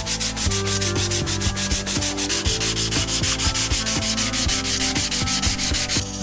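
Hand sanding of bare rusty steel tricycle parts with an abrasive pad: quick, even back-and-forth rubbing strokes, about six a second, that stop just before the end.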